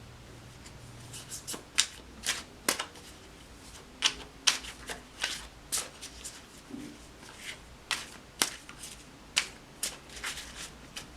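Tarot cards being shuffled and handled: a run of irregular sharp snaps and taps from the deck.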